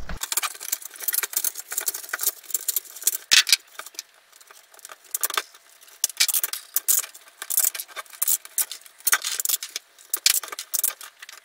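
Utility knife cutting through the thin black PLA filament strands of a 3D-printed hairy lion's mane: a rapid, irregular crackle of snapping strands, easing off briefly about four seconds in before picking up again.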